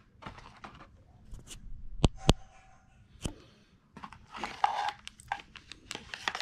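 Handling of a cardboard accessory box and its plastic-bagged power adapter and cables: sharp clicks about two seconds in and again a second later, then crinkling and rustling of plastic.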